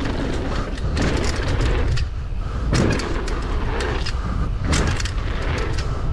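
Wind rumbling on the camera microphone, with hissing surges of skis or a board sliding over snow.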